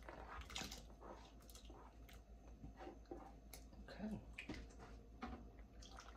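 Faint soft taps and plops as sliced sausage is scraped off a plate with a plastic spatula into a pot of gumbo broth, followed by stirring in the pot.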